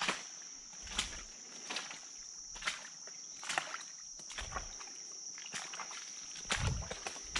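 Footsteps wading through shallow floodwater and mud, splashing and sloshing about once a second, over a steady high-pitched insect drone.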